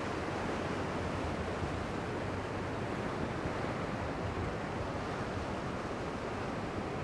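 Small ocean waves breaking and washing through shallow whitewater in a steady rush of surf.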